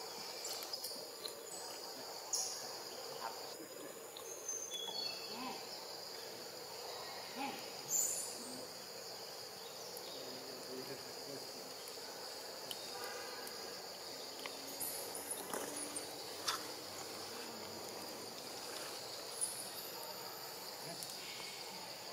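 Forest insects keep up a steady high-pitched drone, with scattered brief clicks and short high chirps over it.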